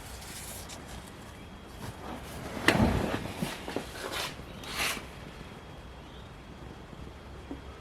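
Work noises from the car's interior: one heavy thump about three seconds in, followed by a few light clicks and two short scraping rustles.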